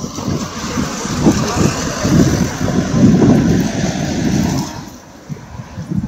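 A car driving past, its tyre and engine noise dying away about five seconds in.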